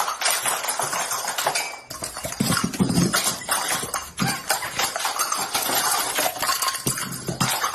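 A dense, uneven run of many small sharp pops and clicks, with a few heavier knocks among them.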